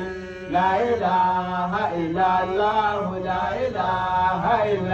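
A man chanting Islamic devotional praise poetry (madaha) into a microphone: one voice in long, sliding melodic phrases, with a steady low hum underneath.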